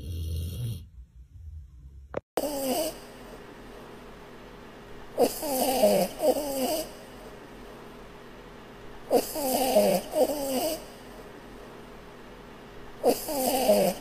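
A small wiry-coated dog snoring in its sleep: wheezy, whistling snores about every four seconds, most of them drawn out in two parts. A low rumbling snore from a sleeping Rottweiler is heard briefly at the start.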